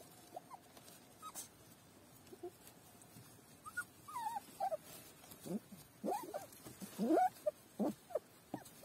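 Young puppies whimpering. Short, high cries that bend up and down in pitch come thicker and louder over the last few seconds.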